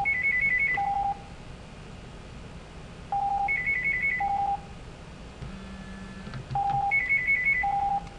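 Electronic telephone-style ringtone ringing three times, about three seconds apart; each ring is a low beep, a quick high warbling trill, and another low beep.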